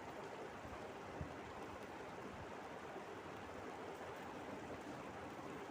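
Masala paste of onion, tomato, ginger and garlic sizzling steadily in oil in a kadai as its water cooks off, with a faint tap about a second in.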